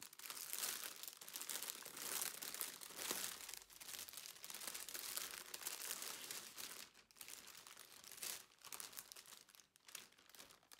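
Clear plastic packaging bag crinkling and rustling as it is opened and pulled off a cross-stitch kit. The crinkling is quiet and near-continuous for the first several seconds, then thins to scattered crackles.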